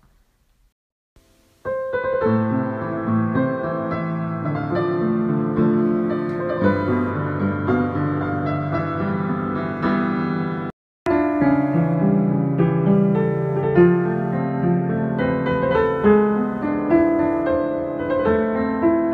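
Acoustic piano played with both hands, chords and a melody, starting about one and a half seconds in. It breaks off abruptly for a moment about eleven seconds in, then the playing resumes.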